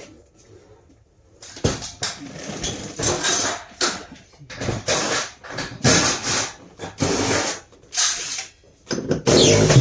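A handheld power tool, such as a drill, running in a series of short, irregular bursts with brief pauses between them.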